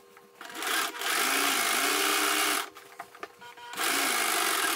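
Kenmore electric sewing machine stitching through layered apron fabric in two runs: about two and a half seconds, a pause of about a second with a few clicks, then a second run. It is backstitching, going backwards and then forwards to lock the seam.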